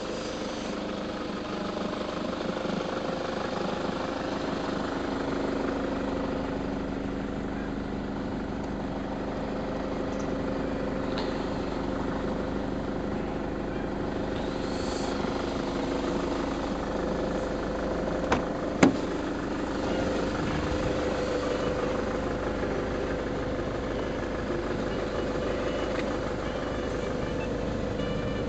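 Nissan Caravan van's engine idling steadily, with two sharp clicks about half a second apart a little past the middle.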